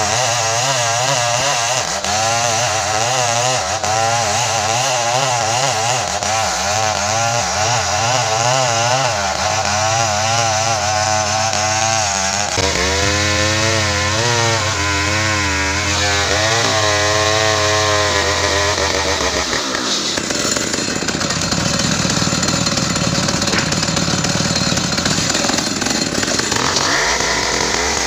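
Large two-stroke chainsaw, an assembled Stihl 070-type saw, running hard while cutting ironwood, its engine note wavering up and down. About two-thirds of the way through, the note jumps higher and turns rougher.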